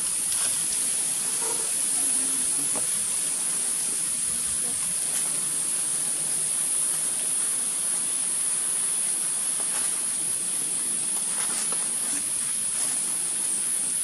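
Steady, high-pitched insect drone that holds unbroken throughout, with a few faint soft sounds beneath it.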